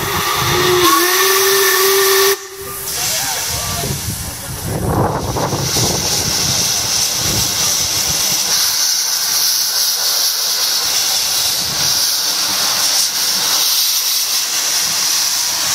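Narrow-gauge steam locomotive's whistle blown once for about two seconds, cutting off sharply. After it comes a steady hiss of escaping steam.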